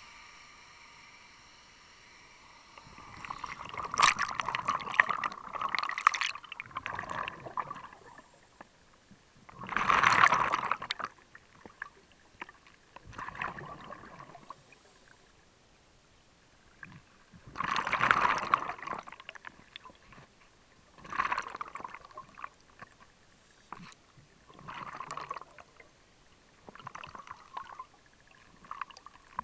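Scuba diver's exhaled bubbles from the regulator, heard underwater: gurgling bursts every few seconds with quiet breaks between, the loudest about ten and eighteen seconds in.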